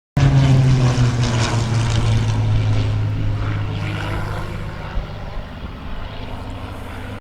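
Hawker Hurricane's Rolls-Royce Merlin V12 engine and propeller, a steady low drone that cuts in suddenly and grows fainter over several seconds as the aircraft moves away, then cuts off.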